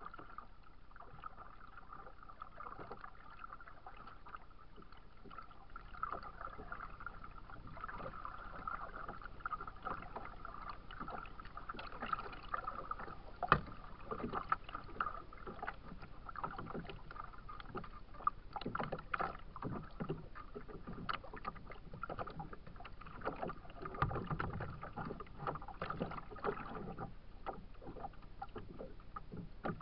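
Small waves lapping and slapping irregularly against a kayak's hull, with a sharper knock about 13 seconds in.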